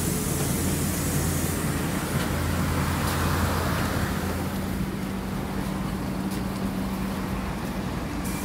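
Steady street traffic noise with the low electrical hum of a standing KAMAZ 6282 electric bus; the hum shifts to a higher steady tone about halfway through.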